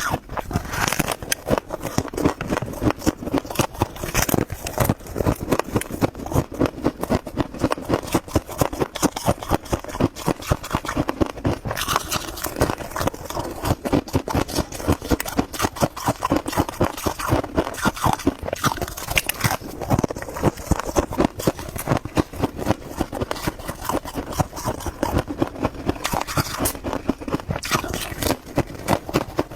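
Freezer frost being chewed close to the microphone: rapid, continuous crunching, several crunches a second.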